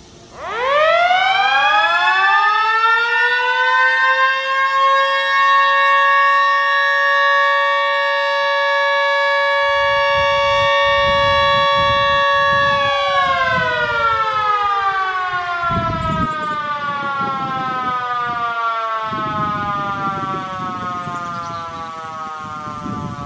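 Two rooftop mini electromechanical sirens winding up together. They rise quickly to a steady chord of high tones, hold it for about nine seconds, then wind down slowly as the pitch falls away.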